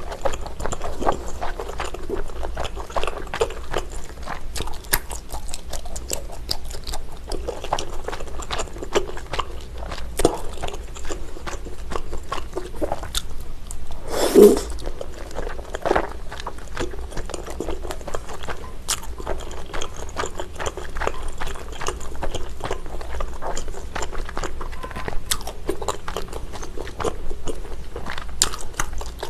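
Close-miked biting and chewing of chewy garae-tteok rice cakes in a thick jjajang sauce: a steady run of small wet, sticky mouth clicks, with one louder mouth sound about halfway through.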